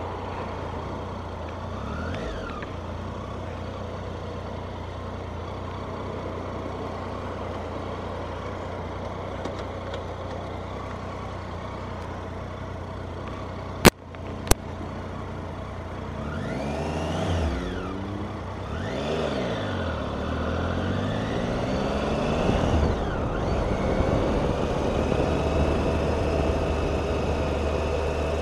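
Motorcycle engine running steadily at low revs. About halfway through come two sharp knocks half a second apart. The engine then revs up and drops back several times as the bike accelerates through the gears, settling into steadier, louder running near the end.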